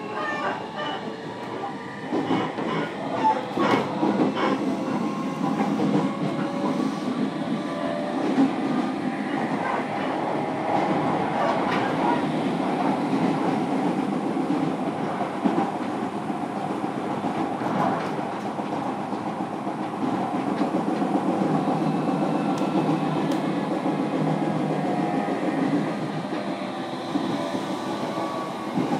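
JR Kyushu 305 series electric train heard from inside a motor car while running: the whine of its Toshiba permanent-magnet motors and VVVF inverter over steady wheel-on-rail running noise, with occasional clicks of rail joints. The motor whine is clearest in the first part and fades into the running noise later.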